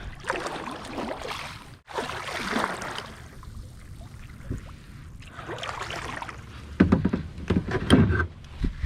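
Kayak paddle strokes swishing through the water, three or four of them. Near the end come several loud hollow thumps and knocks.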